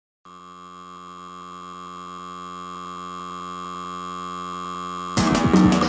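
Electronic drone of several steady tones held together, slowly swelling in volume, with a faint flicker in the middle pitch. About five seconds in, a drum-driven band track cuts in loudly.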